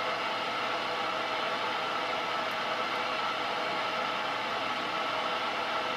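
Steady mechanical hum and hiss of machinery with a few steady tones in it, even in level, with no distinct clicks or knocks.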